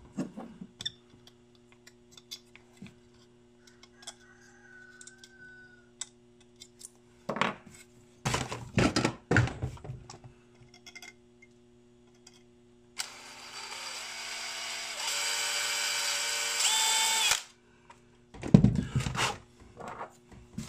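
Clicks and knocks of a small plastic-cased circuit board and capacitor being handled and test-fitted, over a steady low hum. Past the middle a motor whirs loudly for about four seconds, stepping up in pitch partway, then cuts off.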